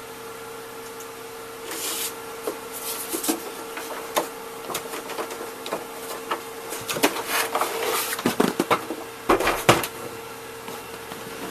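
Irregular rustling, clicks and knocks of handling noise, busier and louder toward the end, over a steady electrical hum.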